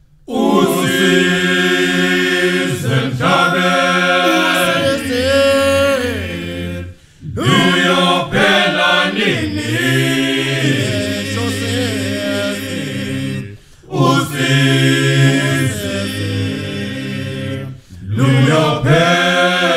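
A group of voices singing a chant-like song in long phrases, with short breaks about 7, 14 and 18 seconds in.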